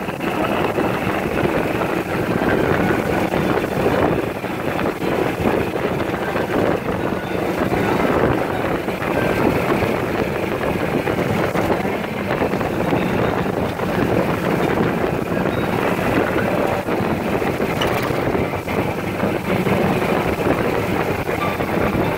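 Steady rush of wind over the microphone mixed with road noise from a golf cart driving along a paved road at speed.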